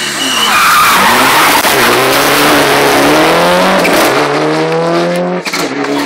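Mitsubishi Lancer Evolution rally car's turbocharged four-cylinder engine pulling hard out of a hairpin, climbing steadily in pitch as it accelerates, with tyre noise as it turns. The sound breaks off abruptly about five and a half seconds in.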